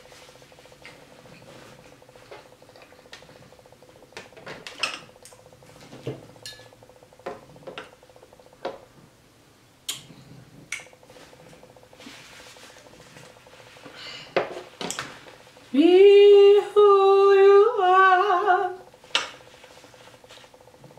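Scattered light clinks and clicks of cutlery and dishes while eating. About two-thirds through, a woman's voice holds one loud long note for about three seconds, wavering near its end.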